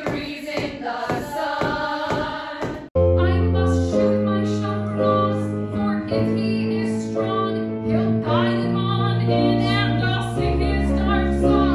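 Musical-theatre cast singing together over a steady percussive beat; about three seconds in it cuts abruptly to held electronic keyboard chords with women's voices singing over them.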